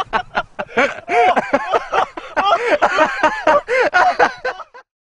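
Loud laughter in rapid, pitched bursts, several a second, with no words, cutting off suddenly near the end.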